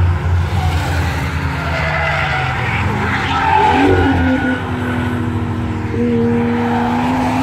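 Cars lapping a race circuit, engines running at speed, with tyres squealing through a corner around the middle and an engine note climbing slightly near the end.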